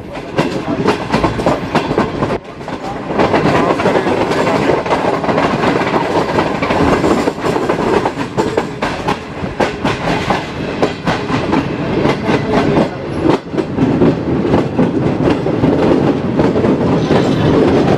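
Moving passenger train's wheels clattering over the rail joints, heard from inside the coach: a dense, rapid clickety-clack over a steady running rumble, louder from about three seconds in.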